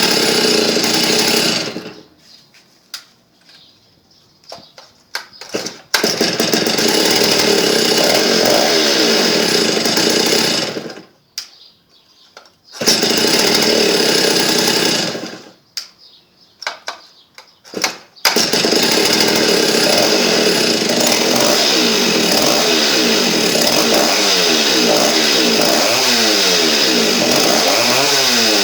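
Stihl 08S chainsaw two-stroke engine, fitted with a 49 mm piston, running at high revs. It drops away twice into quiet with scattered clicks and comes back abruptly each time. Near the end it runs steadily, its pitch rising and falling repeatedly as it is revved.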